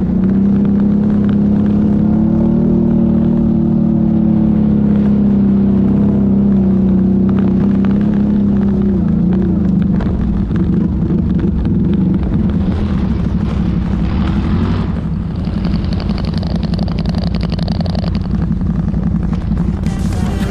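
ATV engine running, holding a steady pitch for about the first nine seconds, then turning rougher and less even.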